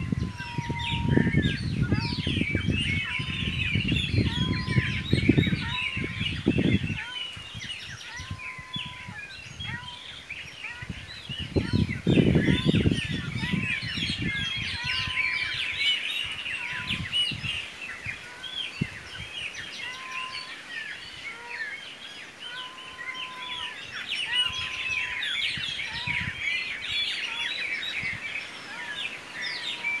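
A chorus of many songbirds chirping and singing together, with one short whistled note repeating about once a second. Low rumbling runs through the first seven seconds and comes again about twelve seconds in.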